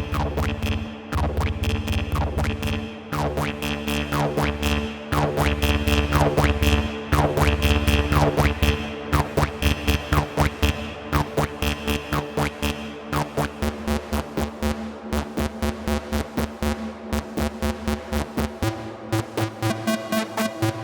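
Electronic music from a VCV Rack software modular synthesizer patch: rapid repeating synth hits over a heavy pulsing bass. About halfway through the bass thins out, leaving steady pulsing hits, and near the end the pattern changes to a new, busier tone.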